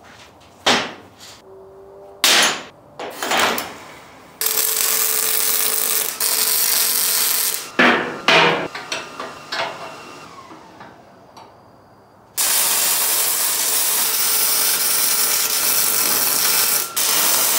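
A wire-feed welder running a bead on steel, a steady hiss over the last five seconds or so. Earlier there are a few sharp metal clanks and knocks, and another long steady hiss.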